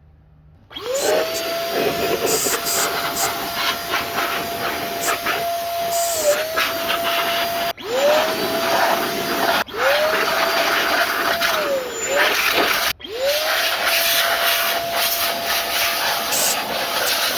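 A small high-speed electric motor of a handheld cleaning tool blasting dust out of a dirty PC: a loud rush of air over a steady motor whine. It starts about a second in, is switched off briefly three times and spins quickly back up each time, and its pitch sags now and then under load.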